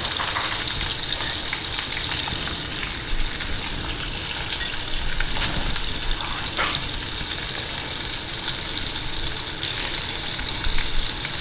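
Breaded shrimp deep-frying in a saucepan of hot lard: a steady sizzle with fine crackling.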